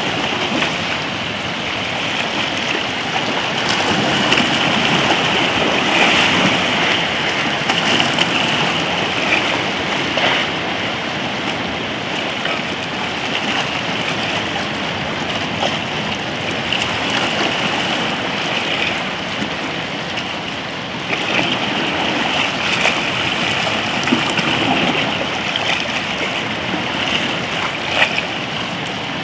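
Small sea waves sloshing and lapping around rocks in shallow water: a steady wash with scattered little splashes, rising and falling in loudness as the swells come in.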